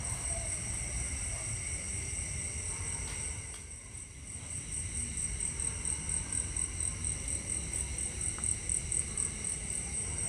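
Insects chirping in a steady, high-pitched chorus with a fast, even pulse, over a low rumble.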